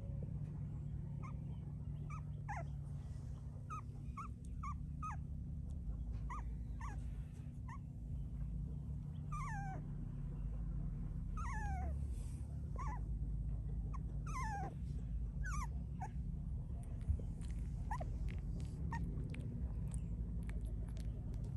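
Young puppies whimpering: a string of short, high squeaks that fall in pitch, coming thickest in the middle, over a low steady rumble.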